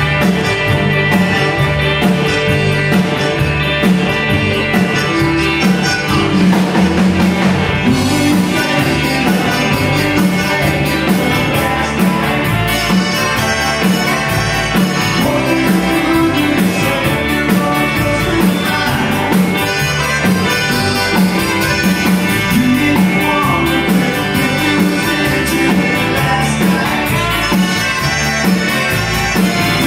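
Live Tex-Mex country band playing a song, with electric guitar, accordion, keyboard, bass and drums keeping a steady beat.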